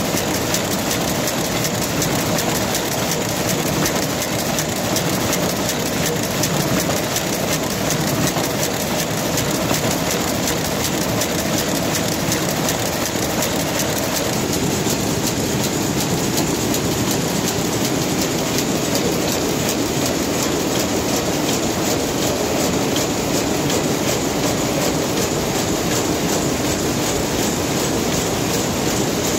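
Rapier weaving looms running, a loud, steady, rapid mechanical clatter of repeating beats.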